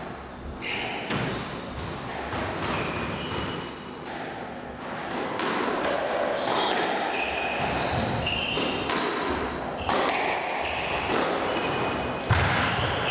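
Squash rally: the ball is struck by rackets and smacks off the court walls, with shoes squeaking on the wooden court floor. The impacts and squeaks get busier from about halfway in, once the serve is played.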